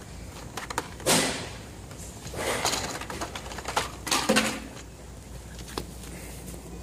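Carded Hot Wheels cars being handled on metal peg hooks: plastic blister packs and cardboard backs clattering and rustling in three short bursts, the loudest and sharpest about a second in, with light clicks between.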